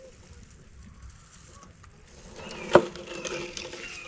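A single sharp clack from a collapsible wire fish basket, its metal rim knocked as a crappie is pulled out through the top, about two and a half seconds in; quiet handling before it.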